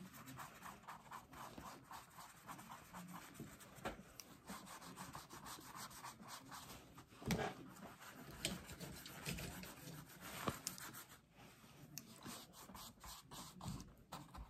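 Paintbrush bristles scrubbing back and forth over watercolour paper, a faint rapid scratchy swishing of many short strokes, as a heavy patch of blue watercolour is spread out with water. A few louder knocks, the clearest about seven seconds in.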